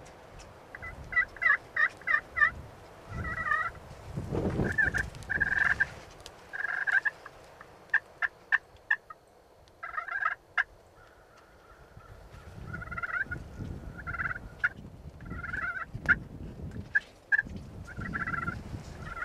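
Wild turkeys calling: short, high calls in bursts of several notes, repeated throughout, with a few sharp clicks around the middle. A low rumble rises and falls underneath.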